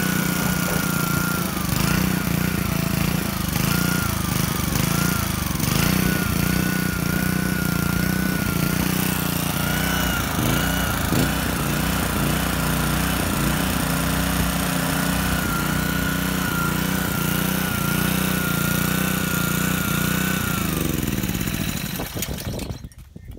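Honda GCV160 single-cylinder four-stroke engine running steadily, driving an outboard lower unit through a shaft coupler, with a high wavering whine over the engine note. About two seconds before the end it is shut off and winds down.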